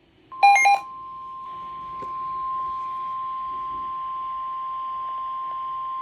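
NOAA Weather Radio warning alarm tone: one steady, piercing tone near 1 kHz over faint radio hiss, which signals that a warning broadcast follows. A short burst of louder, higher beeps sounds at its very start.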